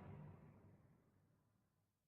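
Faint dying tail of a distorted synthetic whoosh sound effect fading out in the first half second, then near silence.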